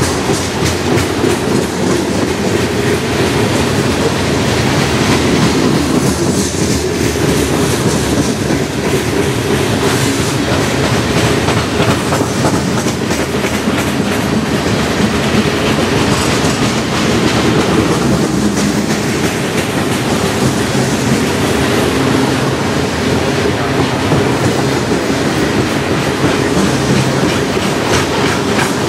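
Covered hopper cars of a freight train rolling past close by: a steady, loud rumble of steel wheels on rail with a running clickety-clack of wheels.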